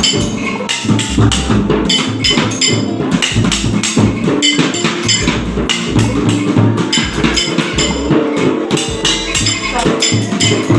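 Children's drum band percussion being struck by many players at once: a dense, unsteady clatter of drum and wood-like hits with some ringing, with no common beat.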